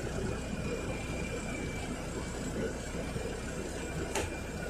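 Inside a NefAZ 5299 city bus, its Mercedes-Benz M906 LAG straight-six compressed-natural-gas engine running with a steady low drone. There is one brief click a little past four seconds.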